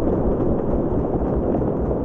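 Submarine propeller churning underwater in a steady, dense low rumble, with a faint regular pulse of the turning screw.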